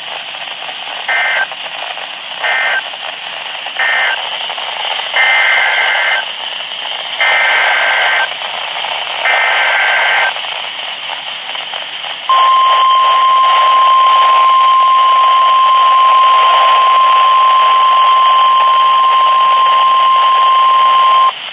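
NOAA Weather Radio Emergency Alert System signal over radio hiss. First come three short bursts of two-tone warbling data, the end-of-message code. Then come three longer bursts of the same data, the SAME header announcing a new warning, and last the steady 1050 Hz warning alarm tone, held for about nine seconds.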